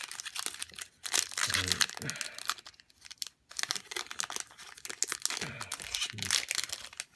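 Foil wrapper of a Pokémon TCG booster pack crinkling and tearing as it is ripped open by hand, full of rapid crackles, with the cards drawn out of it near the end.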